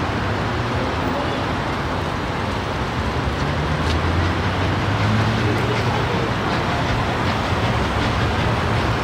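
Low rumble of an approaching train that grows stronger a few seconds in, over a steady background of outdoor noise.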